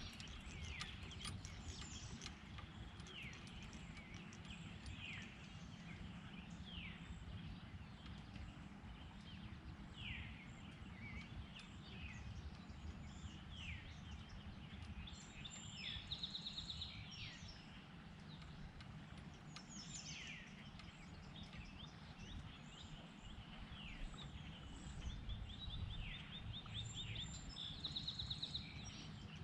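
Several birds singing, with short downward-slurred calls repeated every second or two and a brief rapid trill about halfway through and again near the end, over a faint steady low rumble.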